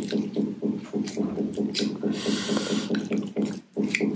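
Wooden spoon stirring noodles in cold broth in a glass bowl: liquid sloshing and dripping, with a few clicks of the utensils against the glass and a hissy splash near the middle. A low pulsing hum runs underneath.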